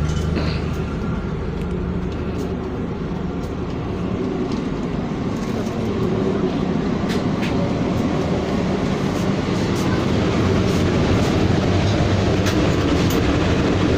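Running noise of a moving passenger train heard from inside a sleeper car: a steady rumble of wheels on the rails with a low hum and scattered clicks and rattles, slowly growing louder.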